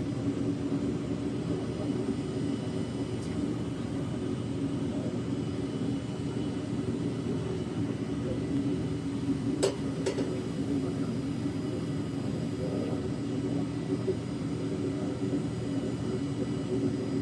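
Foundry furnace burner running with a steady low rumble while bronze melts in the crucible. A sharp click sounds a little past halfway, with a fainter one just after.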